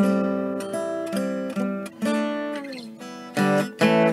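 Background music: an acoustic guitar playing plucked notes and strums, with one note sliding down in pitch about halfway through.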